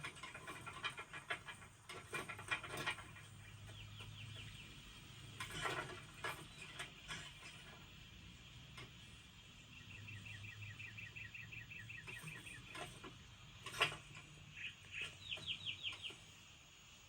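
Animated-film sound effects: rapid trains of small clicks and short chirps, many to the second, broken by a few sharp knocks, the loudest near the end.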